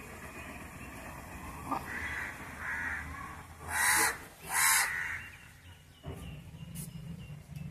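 A crow cawing: two loud, harsh caws in quick succession about four seconds in, after a few fainter calls.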